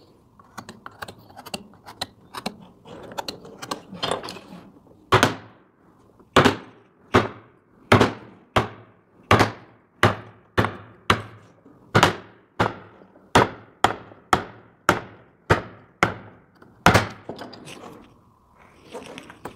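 Wood-carving gouge working a wooden molding: first light cutting clicks and scrapes, then, from about five seconds in, a regular run of about twenty sharp knocks, a little under two a second, as the gouge is tapped through the wood. The knocks stop about three seconds before the end, leaving light scraping.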